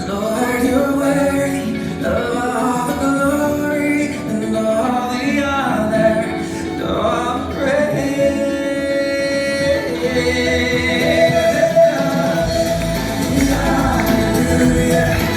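Music with singing, a Christian song with voices carrying the melody; a heavy bass comes in near the end.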